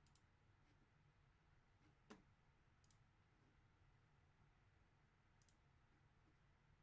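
Near silence, broken by four short, faint clicks; the second, about two seconds in, is the loudest.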